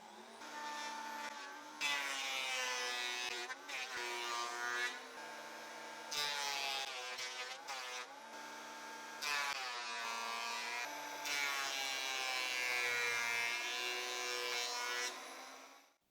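Electric thickness planer running with a steady motor whine, growing louder several times as thin wooden parts are fed through and cut down to 10 mm thickness. It winds down near the end.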